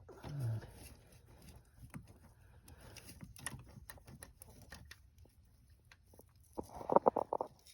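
Light metallic clicks and taps from the rocker arms and valvetrain of a Chevy 5.3 V8 being rocked by hand with the valve cover off, checking for a loose rocker over a collapsed cylinder-deactivation (DOD) lifter. Near the end comes a short, loud pitched sound of several quick pulses.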